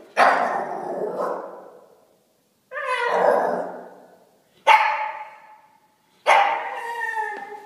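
Shiba Inu barking in a play bow at a cat: four loud barks, each starting suddenly and trailing off over a second or so.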